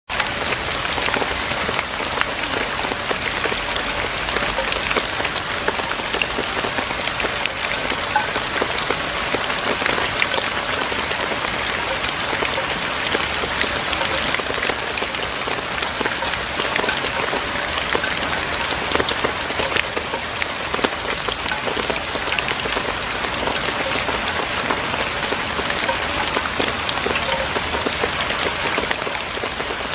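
Steady rain falling on Korean clay roof tiles, a dense even hiss dotted with many small drop hits.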